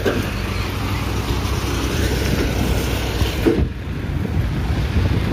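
Heavy diesel truck engine running steadily with a low, even hum.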